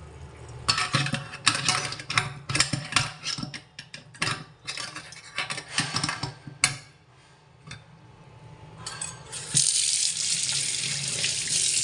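Irregular splashes and clicks at a stainless-steel sink, then, from about two-thirds of the way through, a steady stream of tap water falling on the sink floor and running away freely down the freshly cleared drain.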